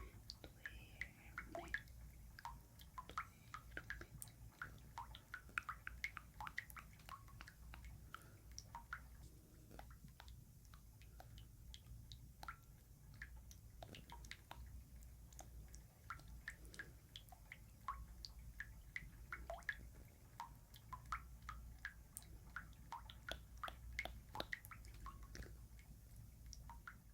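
Water dripping: many small, irregular drops plinking, several a second, with short bright pitched blips.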